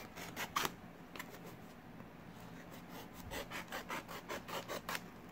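A hobby knife blade scraping and slicing along the sealed edge of a small cardboard box: a few quick strokes at the start, then a run of short rasping strokes, about five a second, over the last two seconds.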